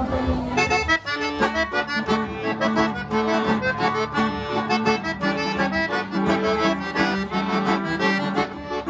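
Accordion playing traditional gaúcho music with quick, evenly repeated notes, coming in about a second in.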